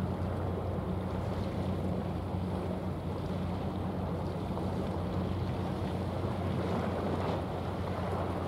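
Steady low engine drone of a passing general cargo ship, with a haze of wind and water noise over it.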